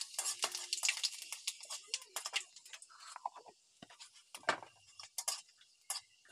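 Whole cumin, panch phoron and dried red chillies sizzling and popping in hot oil in a metal wok, stirred with a metal spatula. The crackling is dense at first and thins to scattered pops.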